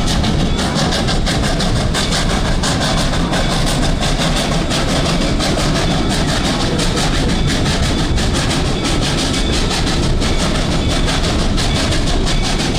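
Steam train running, heard from a passenger car behind the locomotive: a steady loud rumble with a fast, even clatter of wheels on the rails.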